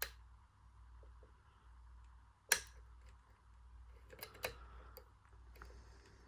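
Small metal clicks and taps from picking a CISA dimple padlock: one sharp click at the start, the loudest click about two and a half seconds in, and a quick cluster of clicks around four seconds in.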